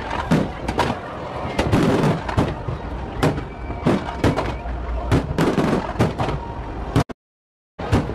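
Fireworks display: aerial shells and other fireworks bursting in many bangs and pops in quick, irregular succession. The sound cuts out completely for a moment near the end.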